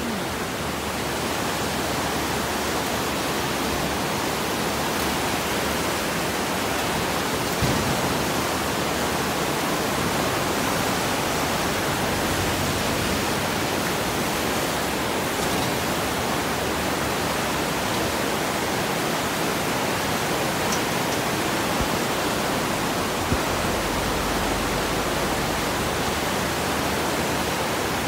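Floodwater of a rain-swollen river rushing through muddy rapids below a bridge: a steady, unbroken rush.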